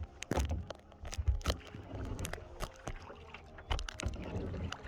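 Kayak paddles knocking against plastic hulls and dipping in the water: irregular clacks and knocks over a low rumble.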